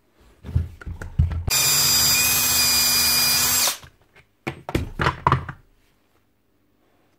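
A power drill-driver runs steadily for about two seconds. Before and after it come short knocks and clunks of metal housing parts being handled.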